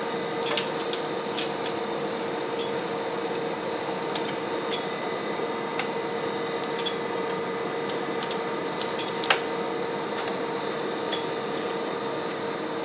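A steady machine hum with a whine, over which come scattered small clicks and taps from handling battery wiring and connectors; the sharpest click comes about nine seconds in.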